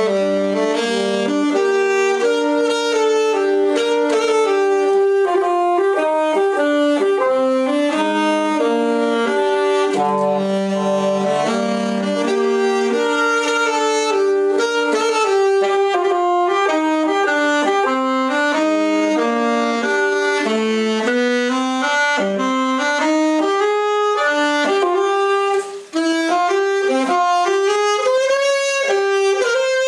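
Two alto saxophones playing a duet, two melodic lines moving together in harmony, with a brief breath pause near the end.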